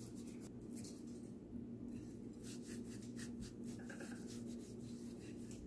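Fingers rubbing and pressing a dry salt, black pepper and garlic powder seasoning into a raw fish fillet on a ceramic plate: faint, repeated soft strokes. A steady low hum runs underneath.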